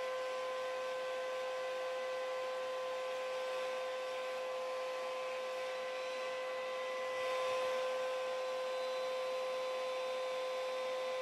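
Hair dryer and upright vacuum cleaner running together: a steady high motor whine over rushing air, swelling slightly about seven seconds in. Both are run on one circuit to overload it and trip the breaker.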